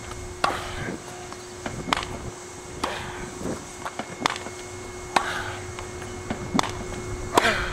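Tennis balls being struck by a racket and bouncing on a hard court: sharp pops at uneven intervals, about eight in all, the loudest near the end, with shuffling footsteps on the court and a faint steady hum underneath.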